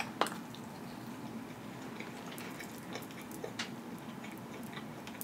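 Close-miked chewing of a mouthful of food: a sharp wet mouth click just after the start, then soft scattered clicks and smacks as the food is chewed with the mouth closed.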